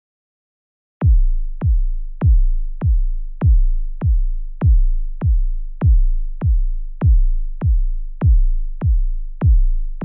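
Synthesized suspense sound effect: a deep drum-machine kick pulse that starts about a second in and repeats evenly, about every 0.6 s. Each beat is a sharp hit whose pitch drops quickly into a low boom, with every other beat a little louder.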